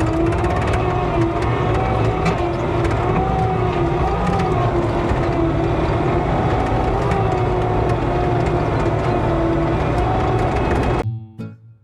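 Bobcat skid steer running steadily under work, its engine and a whine that wavers slightly in pitch. It cuts off abruptly near the end, giving way to strummed acoustic guitar music.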